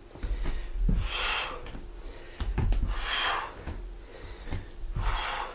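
A man breathing hard during exercise, three heavy breaths about two seconds apart, with dull thuds of bare feet landing on a wooden floor between them.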